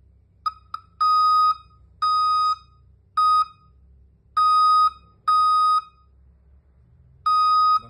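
24 V DC alarm buzzer beeping on one steady high pitch: two quick chirps about half a second in, then six beeps of about half a second each at uneven gaps, one every second or so, with a longer pause near the end. The alarm has been set off by its motion sensor.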